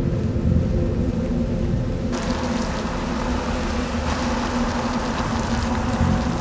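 Steady rumble and tyre hiss of a car driving on a wet road, under a low, steady hum. The hiss grows brighter about two seconds in.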